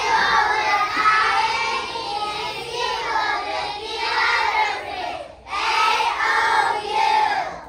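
A group of kindergarten children singing together in unison, in two phrases with a short break about five and a half seconds in.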